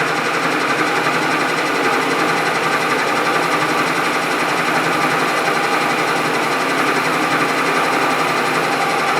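Milling machine running steadily, its cutter fed into the metal part with the knee.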